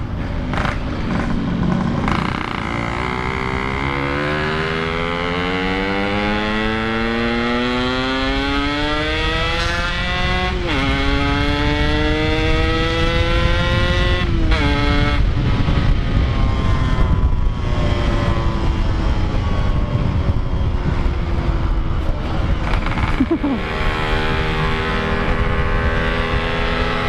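Yamaha RX-King's 135cc two-stroke single-cylinder engine accelerating through the gears: its pitch climbs steadily, drops at a shift about ten seconds in, climbs again and drops at another shift about fifteen seconds in, then runs at a steadier, slowly falling pitch with another change late on. Wind and road rush run beneath it.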